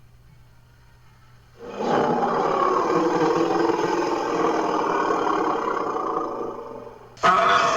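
Imperial mammoth call sound effect: after a short pause, one long, pitched, wavering call lasting about five seconds and fading at its end, then a second call starting abruptly just before the end.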